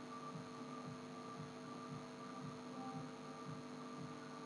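Steady, low-level electrical hum made of several held tones over a faint hiss, with no other sound.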